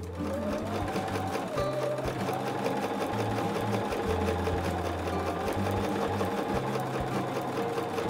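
Electric sewing machine stitching a seam through two layers of fabric, its motor whine rising as it starts up, dipping briefly about a second and a half in, then running steadily with rapid needle strokes. Background music with low notes underneath.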